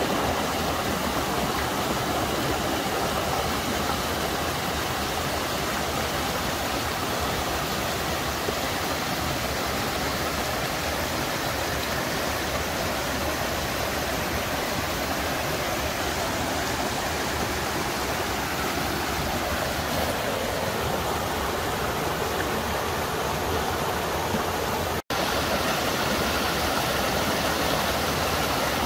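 Steady whir and rushing air of a DJI FPV drone's propellers in flight, with the motor pitch sliding down partway through. The sound cuts out for an instant about 25 seconds in.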